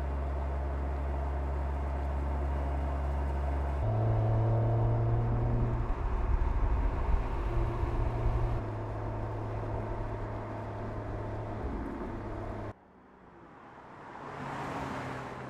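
Mercedes-AMG CLS 53's turbocharged inline-six running under way: a steady low drone, changing to a busier, fluctuating engine note from about four seconds in, then cutting off suddenly. Near the end the car's engine and tyre noise swell up as it approaches.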